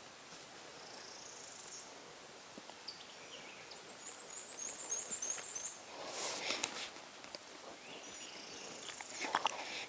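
Small songbirds singing high, thin phrases, one of them a fast trill near the middle, over a quiet woodland background. Dry leaves crackle in two short spells of rustling, a little past halfway and again near the end.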